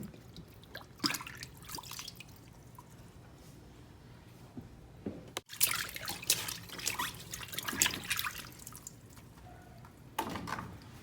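Water splashing and dripping in a washing machine tub in irregular bursts as fabric conditioner is mixed into the rinse water.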